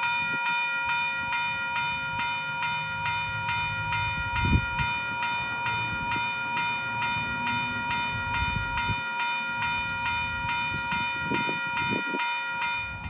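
Electronic railroad crossing bell ringing at a steady rate of about three strokes a second. Each stroke sounds over a held, ringing tone. This is the faulty unit whose ring rate wanders, which the owner puts down to a failing variable resistor inside it.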